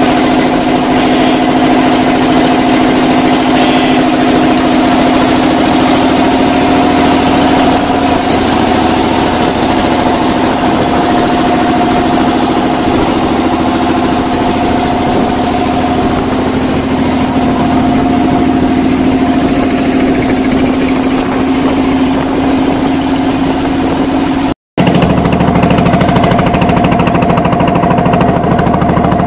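Engine of a wooden motor boat running steadily under way, a loud continuous drone. The sound breaks off for a moment about 25 seconds in and resumes a little lower in pitch.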